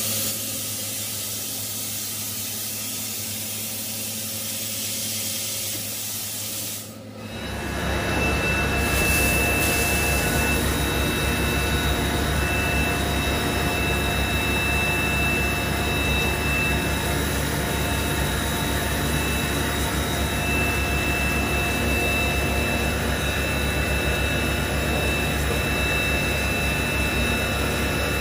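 Okuma MA-550VB vertical machining centre running with its flood coolant and through-spindle coolant spraying: a steady rushing spray over a low hum, with a steady high whine. For about the first seven seconds there is only a quieter hiss, then after a brief dip the sound steps up louder.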